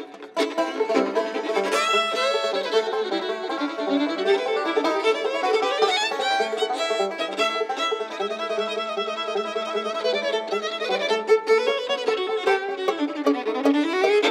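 Live bluegrass band playing an uptempo fiddle tune, the fiddle carrying the melody with sliding notes over plucked strings such as banjo.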